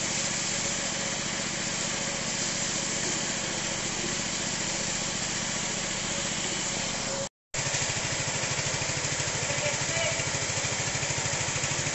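High-pressure power sprayer running steadily: the hiss of the water jet on a slatted floor over the pump's fast, even pulse. It cuts out for a moment about seven seconds in, then carries on.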